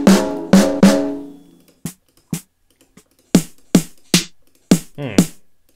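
Sampled snare drum hits auditioned one after another from a drum sample library, about ten single strikes at uneven spacing. The first few ring on with a pitched tone; from about two seconds in they are shorter, drier hits with more snap.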